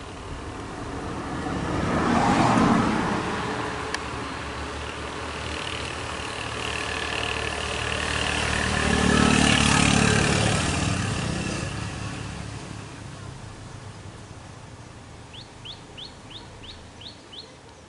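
Vehicles passing on the road: one passes close about two seconds in, and another's engine and tyres swell and fade around nine to eleven seconds. Near the end a bird gives a quick run of about seven rising chirps.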